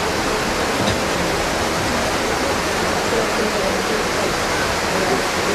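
Steady rush of flowing water, an even hiss with no rhythm or breaks.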